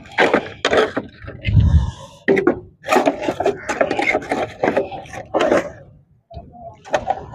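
Thin wooden boards being snapped apart by hand and knocked against each other: a run of sharp cracks, splintering and wooden clatter, with a low thud about one and a half seconds in.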